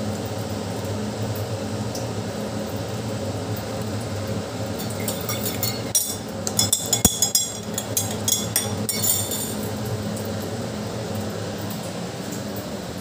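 A metal spoon clinking against a steel tumbler and lemon water being poured into a glass tumbler, a quick run of clinks and splashing from about five seconds in to about nine seconds, over a steady low hum.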